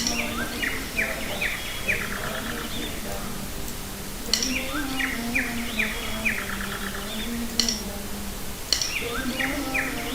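A recorded birdsong sound effect playing on a loop. The same two-second burst of quick chirps repeats about every four seconds, mixed over soft background music.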